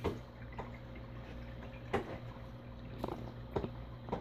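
Water dripping and plopping into an aquarium: about six short plops, each dropping in pitch, over a steady low hum.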